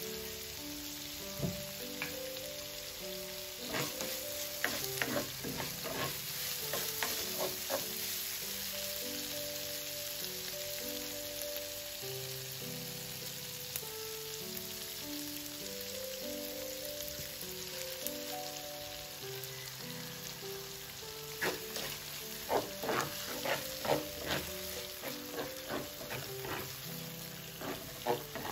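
Ground meat and shiitake mushrooms sizzling steadily in a nonstick frying pan, with a spoon clacking and scraping against the pan in bursts of stirring, about 4 to 8 seconds in and again about 21 to 26 seconds in. Soft background music plays underneath.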